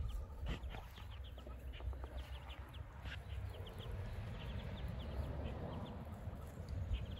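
Ducklings peeping, many short high peeps overlapping at several a second, over a steady low rumble.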